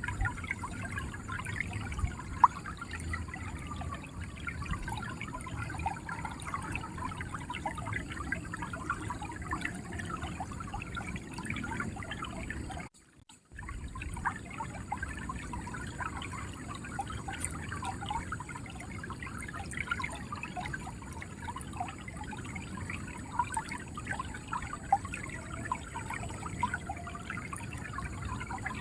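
River water flowing and gurgling, a steady rush dense with small splashy gurgles. The sound cuts out completely for about half a second near the middle, then resumes.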